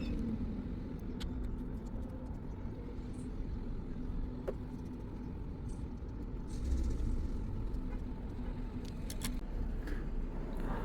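Steady low background rumble with a few faint, small clicks scattered through it, the sound of a precision screwdriver and tiny screws being worked on a phone's screen bracket.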